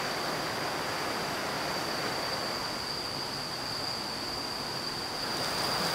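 Steady rush of running stream water, with a continuous high-pitched insect trill held on one note above it.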